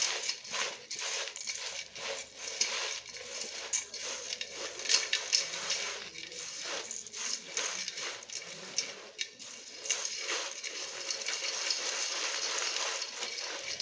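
Crunchy fried chivda mixture of sev, boondi, peanuts and cashews being tossed by hand in a stainless steel bowl to coat it with spices: a dry, irregular rustling crunch with many small clicks and ticks of the pieces against the steel.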